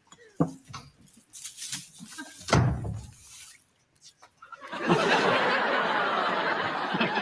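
Small clicks and one dull thump, then from about five seconds in a studio audience laughing, dense and sustained.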